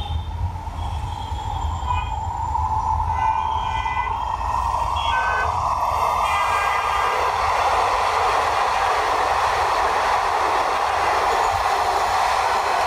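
Bangladesh metro rail electric train running on its elevated viaduct. Its steady rush of wheels on rail grows louder from about halfway in as the train passes close by. Short horn beeps from the street traffic below sound in the first half.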